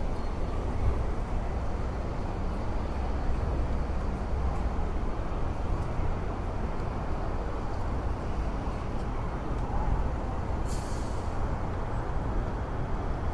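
A train running, a steady low rumble heard from inside the car, with a short sharp hiss of air about eleven seconds in.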